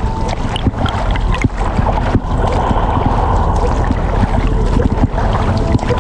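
Underwater sound from a camera submerged in the sea: a dense, rumbling wash of moving water with many scattered clicks and crackles, and a faint steady hum at times.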